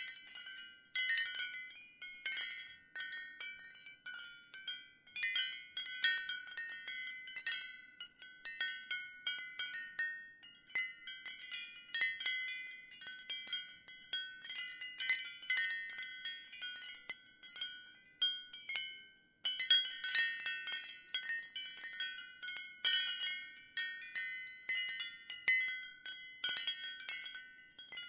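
Wind chimes jangling in irregular clusters of strikes, their high, bright tones ringing on and overlapping. There is a short lull about two-thirds of the way through.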